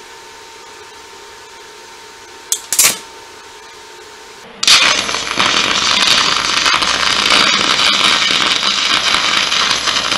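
Scratch-start TIG welding arc burning with the shielding gas left off. Two short snaps come about two and a half seconds in, then about four and a half seconds in the arc catches and runs as a loud, steady crackle.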